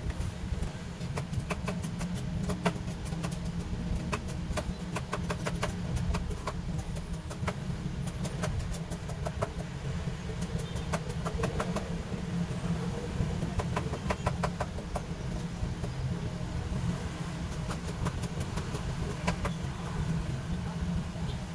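Runs of small, quick clicks every few seconds as a Fossil skeleton automatic watch movement and its dial are handled with tweezers and fingers, over a steady low rumble.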